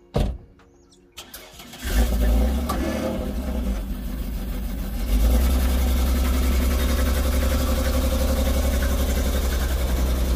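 A car door shuts, then a ute's engine starts about two seconds in and runs steadily. It gets louder about five seconds in as the ute takes the load of towing a boat trailer up the ramp out of the water.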